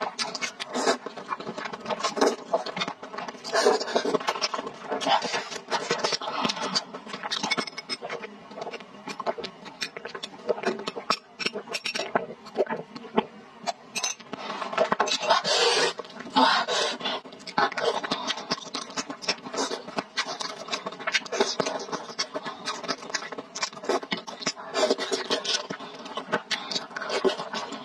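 Close-miked eating sounds: spicy instant noodles and fish balls being chewed and slurped, with wet smacking and clicking mouth sounds coming in irregular bursts.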